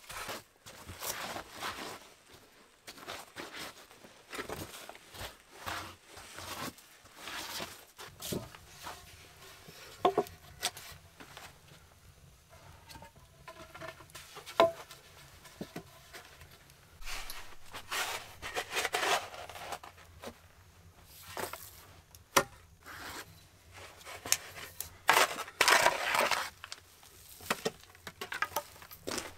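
Steel spade scraping and scooping soil along the floor logs, mixed with boot steps on logs and loose earth. A few sharp knocks of the spade against wood, and two louder spells of scraping in the second half.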